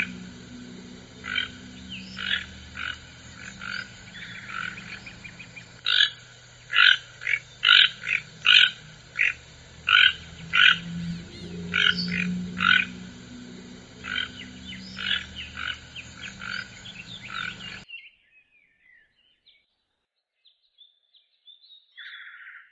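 A toucan calling: many short repeated calls in irregular runs, stopping about 18 seconds in.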